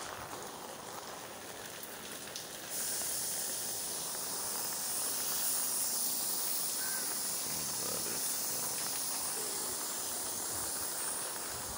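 Steady rain falling, heard as an even high hiss that grows louder about three seconds in.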